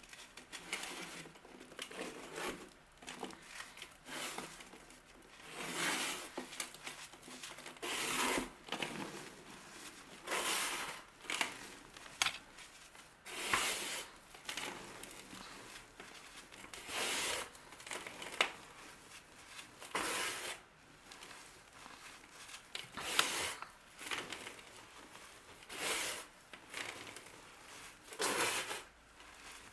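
A run of crisp crunching strokes, about one every two seconds, each short and scratchy, as a crumbly material is cut or crushed by hand.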